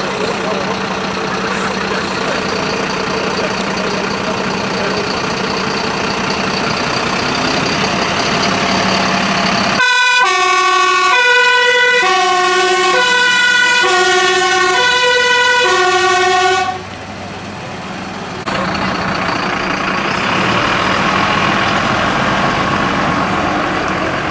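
Mercedes-Benz fire engine driving off with its engine running. About ten seconds in, its two-tone siren sounds, alternating a high and a low note about twice a second, then cuts off suddenly while the engine and road noise carry on.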